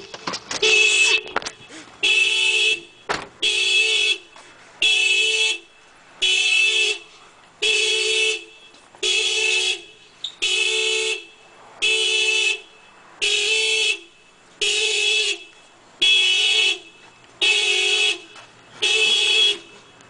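Car alarm sounding through the car's horn: a steady series of honks, each a little under a second long, repeating about once every one and a half seconds.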